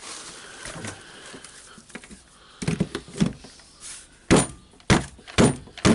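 Quiet handling noises, then from about two and a half seconds in a run of sharp knocks, roughly two a second and growing louder, as a part (the torque limiter) is knocked loose from the rotary hammer's housing.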